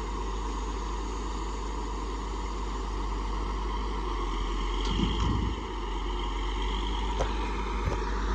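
Self-loading log truck's diesel engine running steadily while it powers the truck's log loader during unloading. A thump about five seconds in and two sharp knocks near the end.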